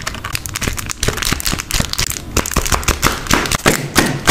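Rapid, irregular crackling and ticking of crisp paper and plastic being handled, as in journal collage work.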